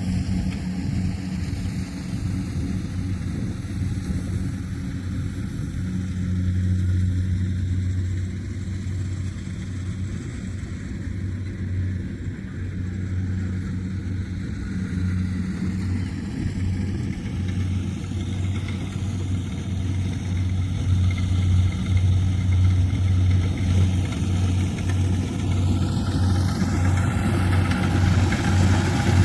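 Kubota rice combine harvester's diesel engine running steadily while harvesting, a constant low hum that grows a little louder in the second half.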